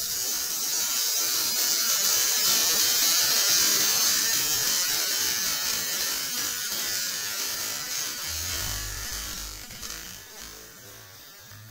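Steady hiss of a pyrotechnic spark fountain spraying from an exploded esky, dying away over the last few seconds.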